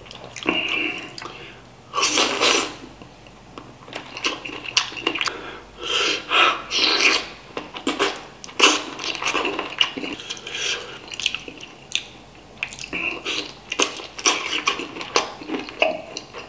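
Close-up mouth sounds of eating spicy chicken feet: wet sucking, smacking and chewing on the bones, with irregular noisy sniffs and breaths between bites.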